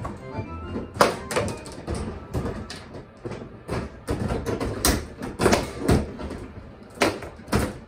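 Bubble hockey table in play: quick, irregular clacks and knocks as the puck is struck by the plastic players and the rods are pushed and spun, the loudest about a second in, near the middle, and twice near the end.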